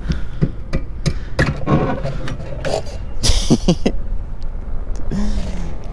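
Two-stroke outboard motor idling with a steady low rumble, just started in the water. Scattered sharp knocks and clanks, as the bow is freed from the trailer, and a brief rushing noise about three seconds in.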